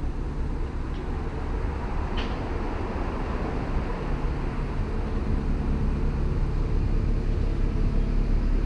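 Narrowboat engine running as the boat passes close by: a steady low hum that grows gradually louder.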